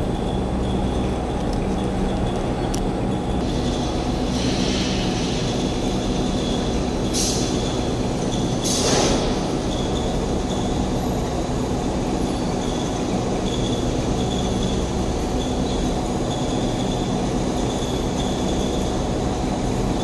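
Steady machinery hum with a thin high whine, over which come a few short raspy scrapes about four to nine seconds in: emery paper rubbing the carbon and copper contacts of a rotary switch clean.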